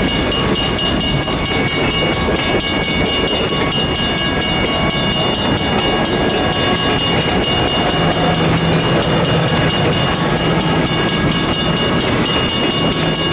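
Passenger railcars rolling through a grade crossing, wheels rumbling on the rails. Over them, the crossing's WCH mechanical bells ring in a fast, even stream of strikes, several a second, with the gates down.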